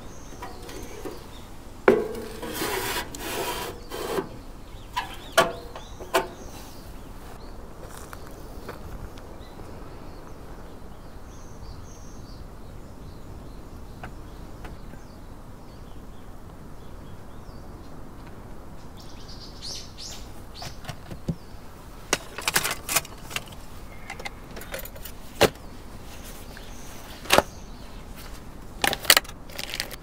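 Scattered knocks and clinks of objects being handled, with a brief rustling scrape a couple of seconds in, a quiet stretch, then more knocks in the last third. Faint bird chirps sound in the background.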